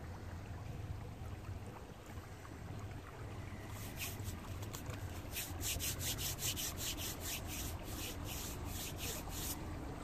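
A passing narrowboat's engine runs with a low, steady rumble. From about four seconds in, a fast run of scratchy rubbing strokes, about three or four a second, comes in over it and is the loudest sound until it stops near the end.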